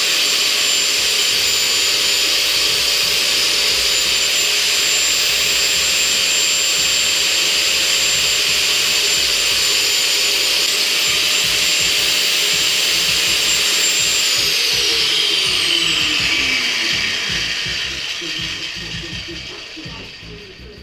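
A small high-speed rotary cutter running steadily with a high whine as it cuts down the overlong horseshoe part of a hood strut mount. About 14 seconds in it is switched off, and its whine falls in pitch and fades as it spins down.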